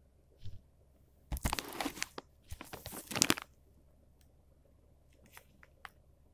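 Plastic packet of corn starch crinkling as it is picked up and handled, in two bursts of crackling about a second apart, followed by a few faint clicks near the end.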